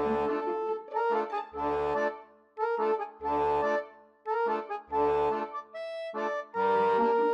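Background music: a pitched melody in short repeating phrases over low bass notes, with a new phrase about every second and a half.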